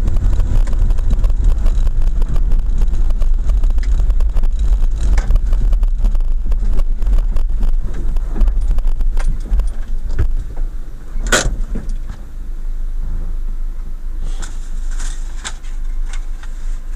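Car driving slowly on a rough, narrow lane, heard from inside: a low rumble of engine and tyres with a dense rattle of small clicks. The sound eases off as the car slows to a stop about ten seconds in, and a single sharp click comes about a second later.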